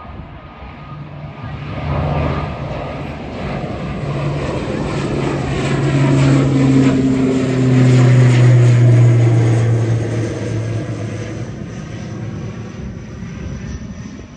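Twin-engine turboprop airliner climbing out after take-off and passing low overhead. The propeller and engine drone swells to a peak about eight seconds in, its pitch dropping as the aircraft passes, then fades as it moves away.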